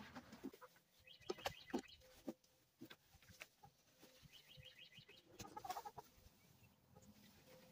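Hens clucking faintly in short runs, with light rustling and a few soft knocks as dry hay is pulled from a plastic bucket and packed into wooden nest boxes.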